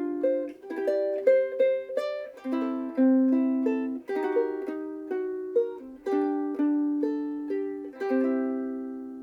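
Famous FS-5G soprano ukulele, with a laminated Hawaiian koa body and fluorocarbon strings, played solo: a melody of plucked notes over chords. Near the end a final chord is struck and left to ring out, fading slowly.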